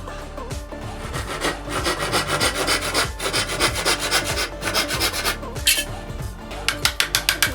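Wood being worked by hand with repeated scraping strokes, several a second, breaking into a quick run of short strokes near the end.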